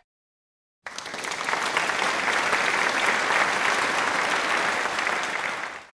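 Crowd applauding: dense, steady clapping that starts abruptly about a second in and fades out near the end.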